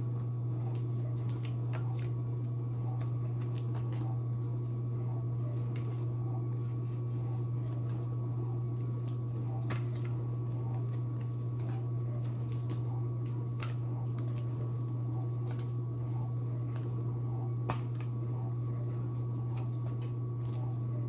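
Dishwasher running in the background, a steady low hum, with frequent light clicks and taps from cardboard flash cards being handled and flipped.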